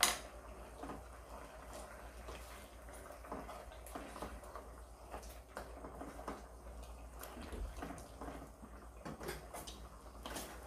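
Kitchenware being handled: a sharp clack at the start, then scattered light clinks and taps of utensils and dishes over a steady low hum.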